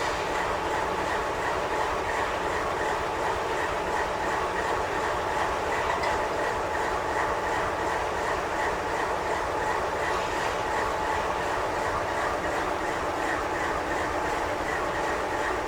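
Container well cars of a double-stack intermodal freight train rolling past, a steady rumble of steel wheels on rail.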